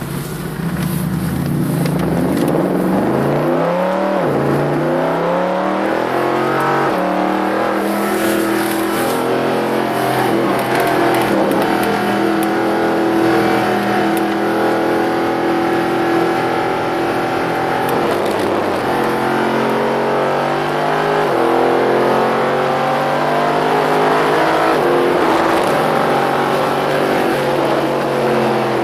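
Mercedes-Benz SLS AMG's 6.2-litre V8 with an Akrapovič exhaust, heard from inside the cabin, accelerating hard onto the track: the revs climb, drop back at each upshift and climb again, hold high for a long stretch, and fall away near the end as it slows for a corner.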